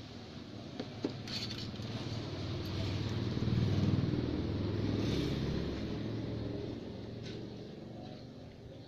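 A motor vehicle passing by, a low rumble that swells to its loudest about four seconds in and then fades away. A couple of faint clicks sound over it: the weak crackle of a CRT TV speaker touched with a continuity tester, very quiet, which suggests the speaker may be faulty.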